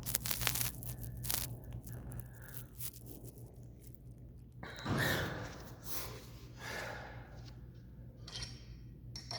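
Clicks and rattles of gym weights being adjusted to a heavier setting, then several hard exhales of exertion during a lift, the loudest about five seconds in. A steady low hum runs underneath.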